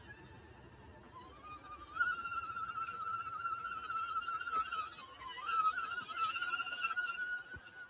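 Electric drive motor of an RC4WD scale crawler whining under throttle, the pitch stepping up about two seconds in, sagging briefly around five seconds and climbing again, then stopping near the end.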